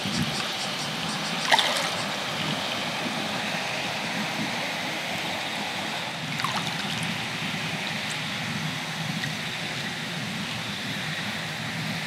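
Small waves lapping and trickling water at the edge of a tidal mudflat, a steady wash, with a sharp click about a second and a half in and a fainter one a few seconds later.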